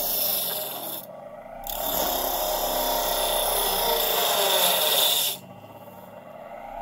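Bench grinder wheel grinding into a piece of 2x4 wood, a harsh rasping hiss in two passes: a short one of about a second, then a longer one of about three and a half seconds. Under it the grinder's induction motor hums steadily, and near the end the motor runs on alone.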